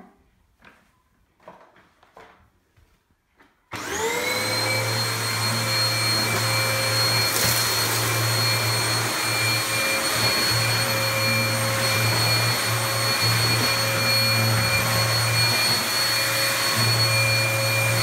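Vax Dynamo Power Pet bagless upright vacuum cleaner switched on about four seconds in. Its motor whine rises quickly to speed, then runs steadily as the cleaner is pushed over a hard floor.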